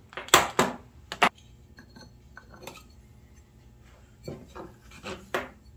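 Metal clinks and knocks as the clutch is taken apart on an ATV engine. A few sharp knocks come in the first second and a half, light clinks follow, and a few more come near the end as the clutch basket is slid off its shaft.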